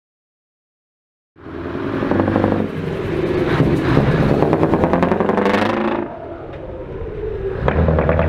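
Silence for about the first second and a half, then a Scania V8 truck engine with a very loud exhaust revving up and down. It drops back about six seconds in and rises again near the end as the truck pulls away.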